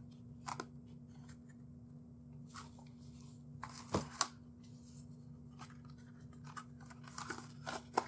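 Plastic disc cases and packaging being handled: scattered soft clicks and rustles, with two sharper clicks about four seconds in, over a faint steady hum.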